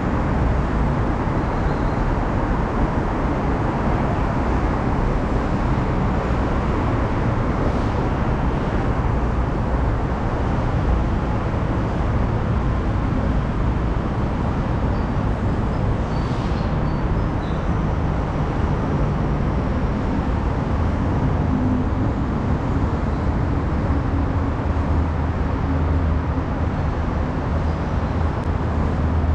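Steady city traffic noise, a constant low rumble of road vehicles, with a deeper engine hum building in the last ten seconds.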